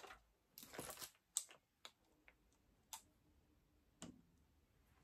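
Soft rustle about a second in, then a few light clicks and taps spread out: small objects being handled and set down.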